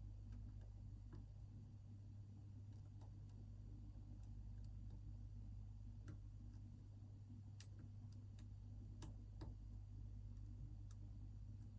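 Faint, irregular small clicks of a lock pick working the pin stack inside an ASSA Twin 6000 lock, over a steady low hum.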